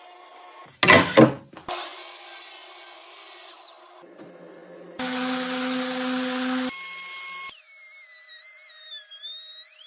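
Woodworking power-tool sounds in quick succession: two sharp knocks about a second in, then a power tool motor running with a steady whine, then a motor whose pitch wavers up and down as the tool works wood.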